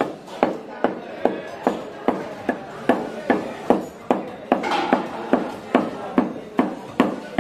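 A butcher's cleaver chopping meat on a round wooden block, in steady even strokes about two and a half a second.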